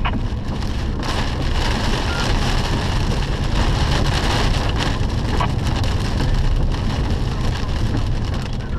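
Steady rushing noise of wind and rain.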